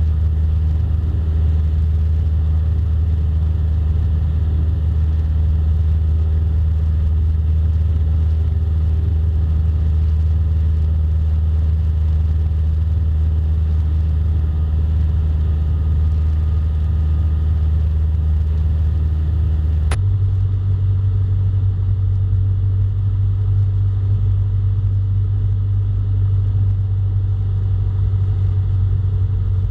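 Cessna Skyhawk light aircraft's engine and propeller droning steadily in the cabin. About two-thirds of the way through there is a sharp click and the drone abruptly changes tone.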